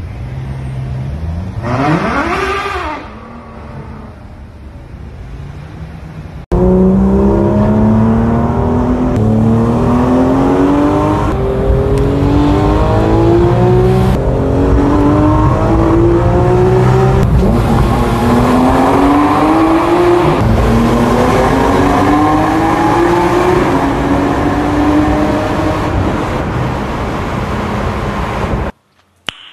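A car engine accelerating hard through the gears, heard from inside the cabin: its note climbs and drops back at each upshift, again and again. Before this, about two seconds in, a car on a street revs briefly over traffic noise.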